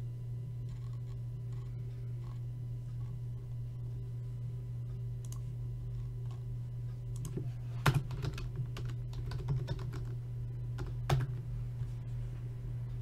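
Typing on a computer keyboard: a run of keystroke clicks in the second half, two of them louder, over a steady low electrical hum.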